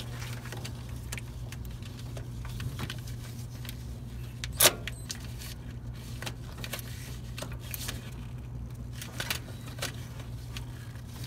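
Hand tools working on metal fittings: scattered clinks and light scrapes, with one sharp metallic clink about four and a half seconds in and a few fainter ones near the end, over a steady low hum.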